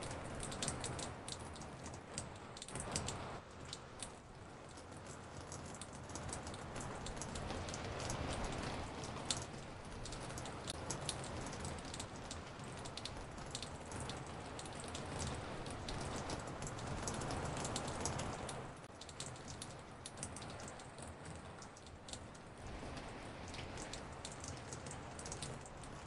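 Raindrops falling on a porch, many recordings layered into a dense patter of individual drop ticks over a steady rain hiss, placed around the listener in 3D sound.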